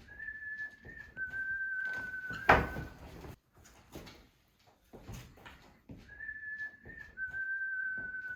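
A steady whistled tone in two notes: a higher note for about a second, then a step down to a slightly lower note held for about a second and a half. The phrase repeats about six seconds later. A single sharp knock comes about two and a half seconds in.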